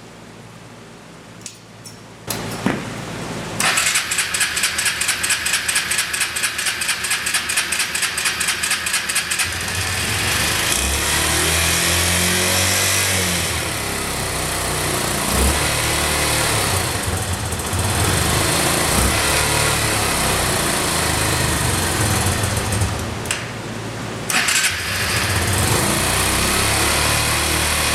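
Kawasaki Eliminator 125's single-cylinder four-stroke engine being cranked over for about six seconds, then catching and running, cold and not quite steady, on its first start after a crankshaft replacement.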